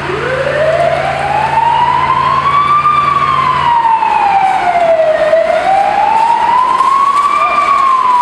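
An emergency vehicle's siren winding up and wailing, its pitch sweeping slowly up and down twice. A low steady hum underneath cuts off a few seconds in.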